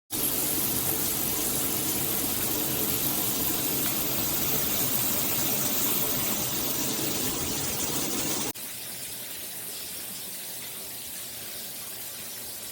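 Shower water running from a rainfall shower head with handheld spray: a steady rush of spraying water that changes suddenly about eight and a half seconds in to a quieter, hissier spray.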